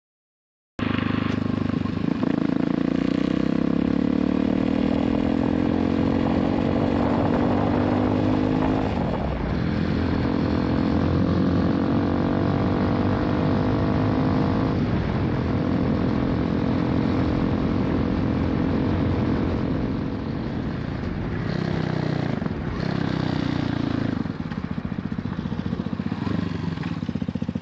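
Hawk 250 motorcycle being ridden, its engine pulling up through the gears: the pitch climbs slowly, drops at a shift about nine seconds in and again about fifteen seconds in, then runs more steadily and a little quieter.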